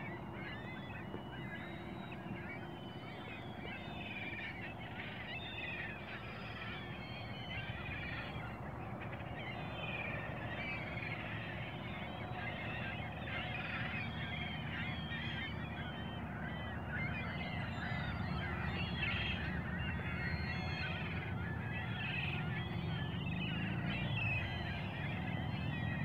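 A large flock of geese on a lake calling all at once: many overlapping short calls blending into a dense, continuous chorus that grows gradually louder.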